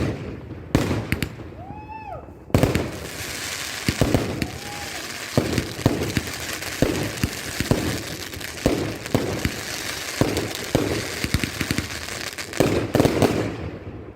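Fireworks going off: several sharp bangs, then from about two and a half seconds in a dense run of crackling bursts with bangs among them for about ten seconds, stopping shortly before the end.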